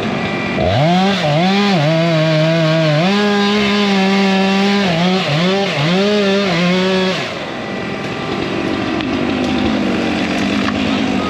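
Two-stroke chainsaw revved to full throttle about half a second in, its pitch dipping and recovering several times, then released about 7 s in. A lower, steadier engine noise carries on after it.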